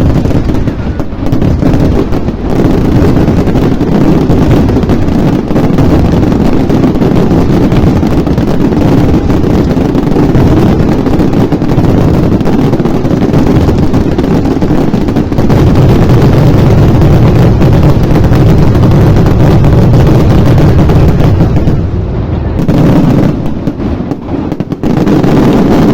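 Aerial fireworks going off in a dense, continuous barrage of rapid bursts and heavy booms. The booms are heaviest about two-thirds of the way through, then ease off briefly near the end before picking up again.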